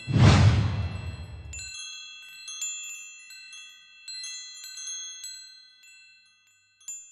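A loud burst of static-like noise with the HBO logo, fading away over about a second and a half. Then a shower of bright, high ringing chime notes, overlapping and slowly dying away.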